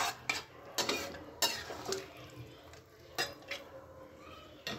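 A spatula scraping and knocking against a wok while stirring thick chili chicken gravy, in a handful of short, uneven strokes.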